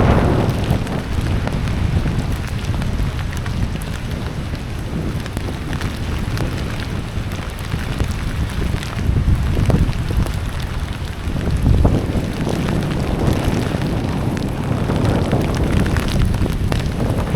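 Rain and wind on the microphone: a steady, rough rushing noise, heaviest in the low rumble and rising and falling in gusts.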